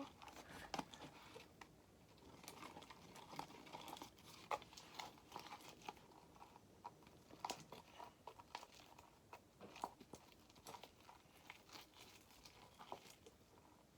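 Glue slime being stirred in a bowl after activator is added: faint, irregular sticky clicks and crackles.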